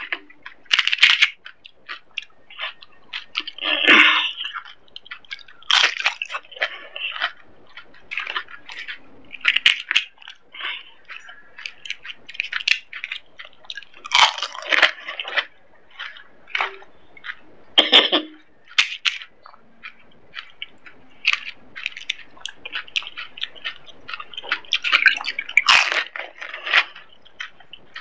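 Close-miked eating of pani puri: hollow, crisp fried puri shells crunching and cracking in the mouth, with wet chewing of the water-filled puris, in irregular bursts.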